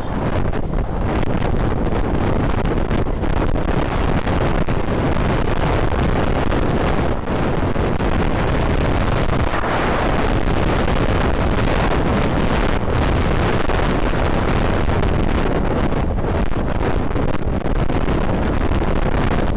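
Steady, loud wind rushing over the microphone of a Honda Vario 125 scooter riding at speed, with the scooter's running and road noise underneath.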